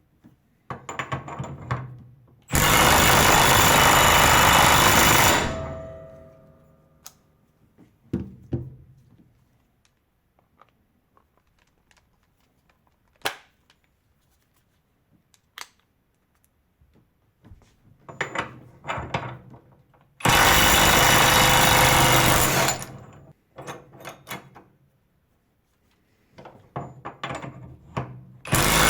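12 V cordless impact wrenches hammering on a bolt: one loud burst of about three seconds starting a couple of seconds in, and another about twenty seconds in, during tightening and loosening. Between the bursts come clicks and knocks of the tool and socket being handled, and a third burst starts right at the end.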